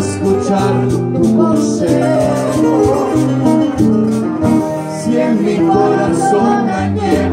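Live music: a man and a boy singing a song together over guitar accompaniment with light rhythmic percussion.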